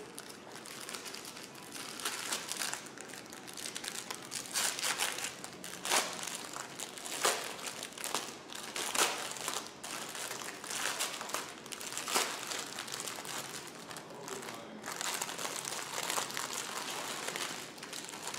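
Crinkling and rustling of kit packaging as it is handled and unwrapped, with irregular sharper crackles throughout.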